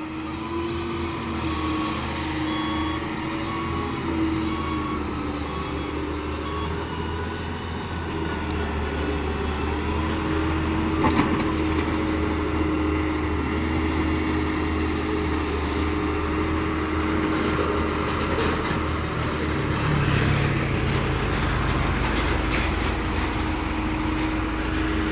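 Diesel engine of heavy earthmoving machinery running steadily at a road construction site, with a reversing alarm beeping at an even pace for the first several seconds. A single knock sounds about eleven seconds in, and the low engine rumble grows heavier near the end.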